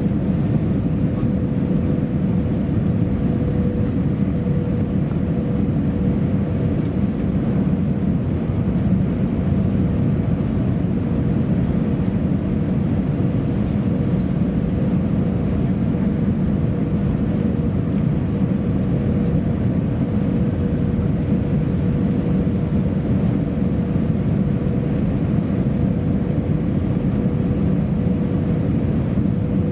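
Cabin noise of an Airbus A319-111 on approach, heard from a window seat over the wing: a steady rush of airflow and engine noise with a steady hum on one pitch above it.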